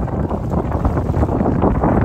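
Wind buffeting the microphone on a moving boat, a steady low rumbling rush, with the boat's motor and the water running underneath.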